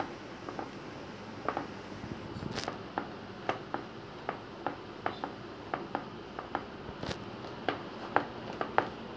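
Rolling pin working thin roti dough on a steel plate, with light sharp clicks and taps against the metal, irregular at about two a second, over a soft rolling rustle.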